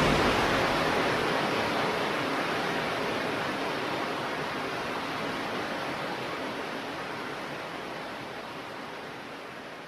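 Sound effect from a laser effects pack: a long hiss of noise, the tail of a sudden blast that starts just before, fading slowly and evenly over about ten seconds.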